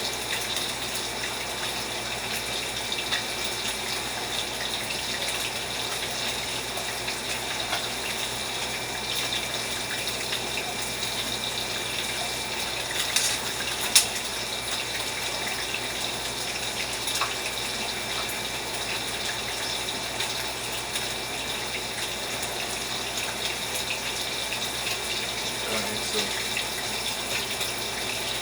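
Steady hiss of food cooking in pots on a stove, with a sharp clink about halfway through.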